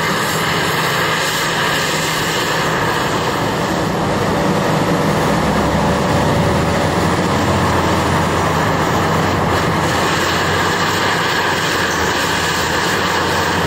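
Cat 6015B hydraulic mining excavator's diesel engine and hydraulics running under load, a loud, steady drone. It swells deeper about five seconds in and eases back after about ten seconds.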